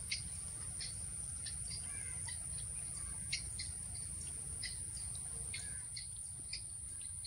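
Outdoor ambience: a steady high-pitched insect drone with scattered short bird chirps, over a low steady rumble.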